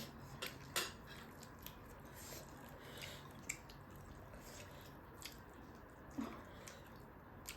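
Close-miked eating sounds from chewing chicken wings: wet, squishy mouth sounds and lip smacks with scattered sharp clicks every second or so.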